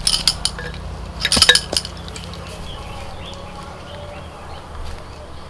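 Two short clusters of sharp clinks, one at the start and another about a second and a half in, over a low steady hum.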